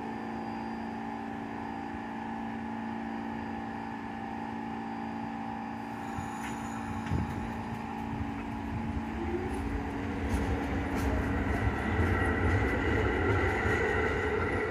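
New York City subway trains: a steady electrical hum, then from about nine seconds in a rising motor whine with rumble and clicking wheels over rail joints, growing louder as a train moves through the station.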